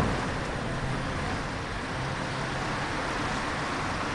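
Steady street noise with road traffic, and a single sharp knock at the very start.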